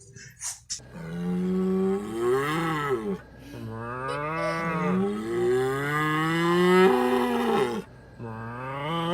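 An animal making long, drawn-out calls that bend up and down in pitch, several in a row with short breaks between them.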